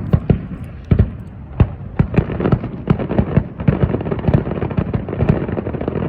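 Aerial fireworks bursting: a few separate sharp bangs at first, then a dense, rapid run of overlapping booms from about two seconds in.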